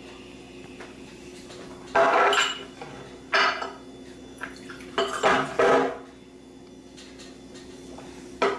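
Hard objects clattering in about five short, loud bursts over a steady low hum.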